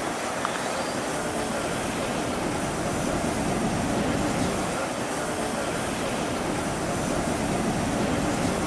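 Railway locomotives running as they move slowly along a station platform: a steady mechanical rumble and hum.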